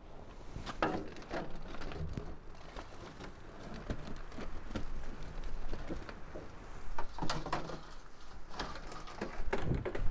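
Old rusted stovepipe being worked loose by hand: irregular scrapes, creaks and knocks of metal pipe, louder in a cluster late on.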